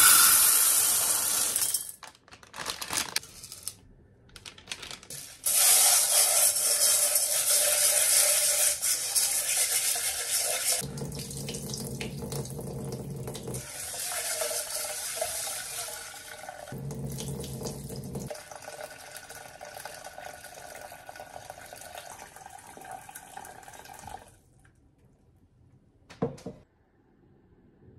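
Dried adzuki beans pour into a rice cooker's metal inner pot with a dry rattle for about two seconds. Then a kitchen tap runs into the pot, water splashing over the beans as they are rinsed. The tap shuts off suddenly near the end, followed by a single light knock.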